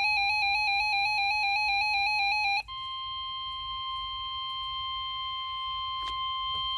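Weather-radio emergency alert tones: a warbling two-tone signal that cuts off about two and a half seconds in, followed by a single steady high tone, the NOAA Weather Radio warning alarm tone that comes before a new warning is read.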